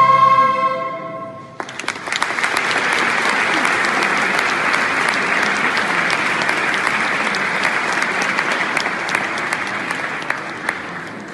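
The final held chord of a school orchestra of violins and guitars with choir dies away; about a second and a half in, audience applause breaks out and goes on, easing slightly near the end.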